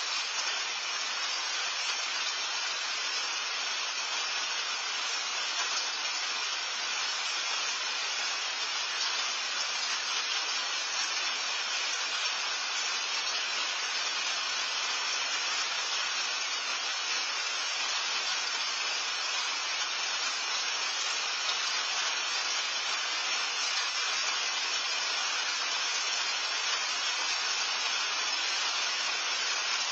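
Steady rain falling, an even hiss without separate drops or pauses.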